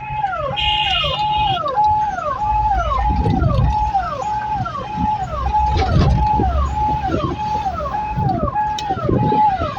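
Car-mounted Ahuja electronic police-style siren sounding a repeating wail: a held tone that drops off, about two cycles a second. Traffic and engine rumble sits underneath, and a short higher horn-like tone sounds about half a second in.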